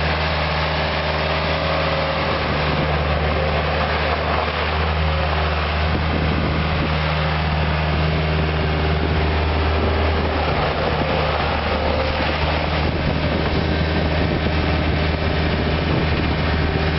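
Case 430 skid steer loader's diesel engine running steadily at an even pitch.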